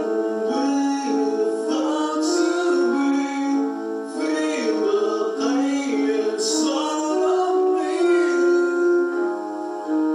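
Song on electronic keyboard with held chords and a singing voice, with breathy bursts of mouth-blown wind noise a few times.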